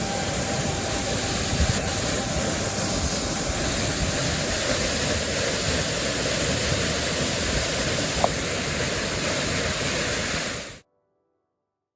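Waterfall pouring: a steady, even rush of falling water that cuts off abruptly near the end.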